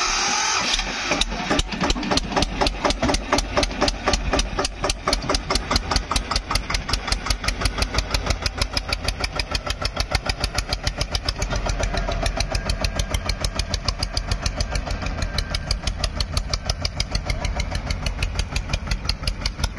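Diesel tractor engine idling with a steady, rapid, even pulsing beat, just after starting. There is a brief hiss in the first second.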